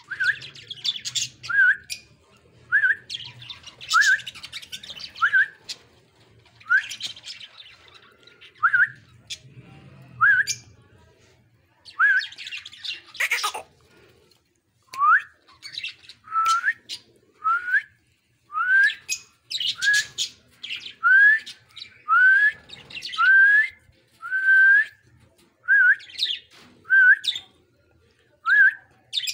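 Budgerigars calling: a short rising chirp repeated about once a second, coming a little faster in the second half, mixed with scratchy warbling chatter.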